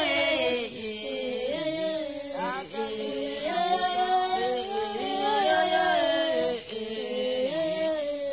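African Pygmy polyphonic singing: several voices sing interlocking parts at once, weaving independent melodic lines over one another.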